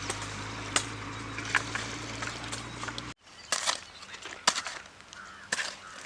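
Egg scramble sizzling in a frying pan, with the spatula clicking against the pan as it is stirred. About halfway through, the sound cuts off abruptly and is replaced by sharp clicks and short bird chirps.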